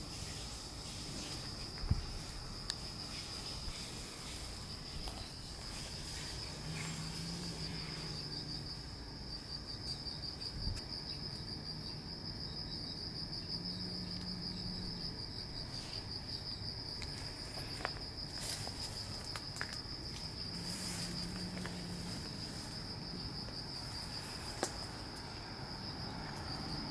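Insects trilling in a steady, high, slightly pulsing chorus that runs without a break, with a few faint clicks along the way.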